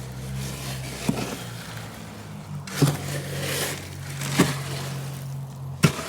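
Concrete being hand-mixed in a wheelbarrow: a tool scraping through the wet mix, with a sharp knock about every second and a half, over a steady low hum.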